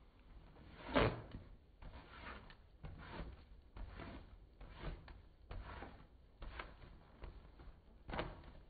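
Razor blade scraping over a lathered rubber balloon in short strokes, about one or two a second, the loudest about a second in.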